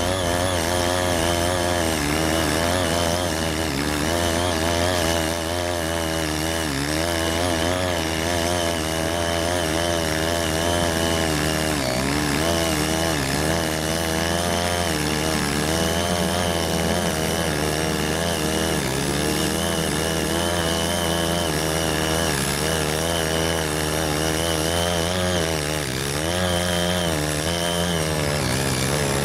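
Ching Yee CY80 mini tiller's 78.5 cc air-cooled two-stroke engine running steadily under load while tilling soil, its pitch wavering up and down as the tines bite.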